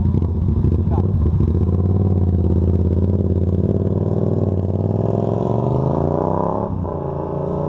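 Yamaha MT-07's 689 cc parallel-twin engine running through a full aftermarket exhaust, a deep rumble that climbs steadily in pitch from about halfway through as the engine revs up, then drops suddenly about seven seconds in.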